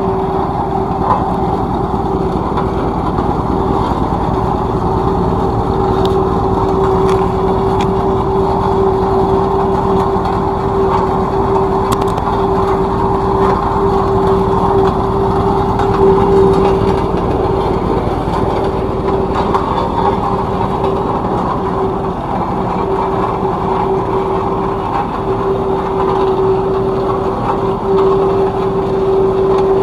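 Tandem road roller's engine running steadily, with a constant tone held over it.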